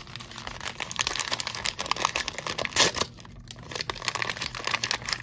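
Blind-box toy packaging being crinkled and torn open by hand: a run of quick crackles, with one short, louder rip a little under three seconds in.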